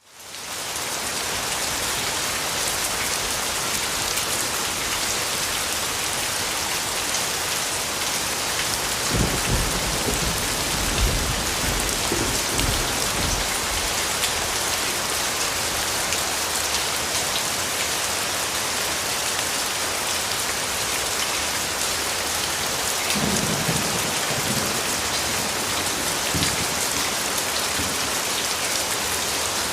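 Steady rain pattering on a surface, fading in over the first second, with low rolls of thunder about nine seconds in and again around twenty-three seconds.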